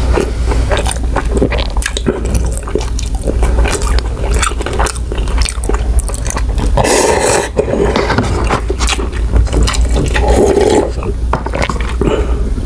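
Close-miked eating of instant noodles in broth: wet chewing and mouth clicks, with longer slurps of noodles about seven seconds in and again about ten seconds in, over a steady low hum.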